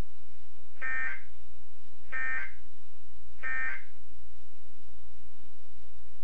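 Three short bursts of emergency alert system (SAME) digital data tones, a shrill electronic warble, about 1.3 seconds apart in the first half, over a steady low hum.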